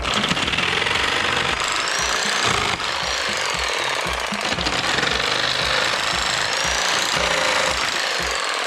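A woodworking machine running with a loud, dense rasping noise that cuts in suddenly, a faint whine rising and falling above it, over background music with a steady beat.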